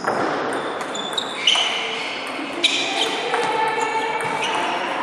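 Table tennis rally: the celluloid ball clicking off rubber-faced paddles and bouncing on the table, a few sharp hits with short pinging rings, the loudest about one and a half and two and a half seconds in.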